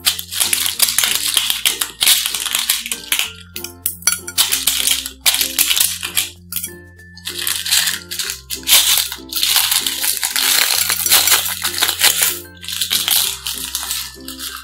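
Beads rattling and clicking in irregular bursts as they are worked into clear slime by hand, over upbeat background music with a stepping bass line.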